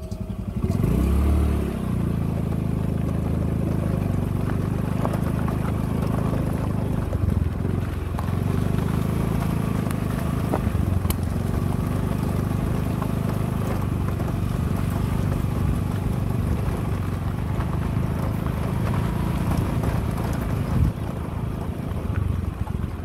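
Small motorcycle engine running steadily while the bike is ridden, with a short rise in engine pitch about a second in.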